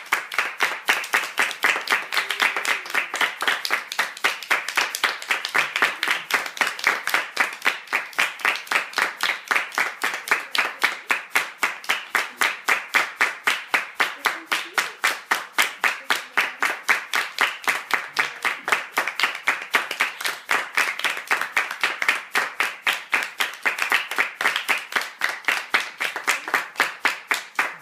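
A small group of people clapping their hands together in a steady, fairly even rhythm, about four claps a second, without a break.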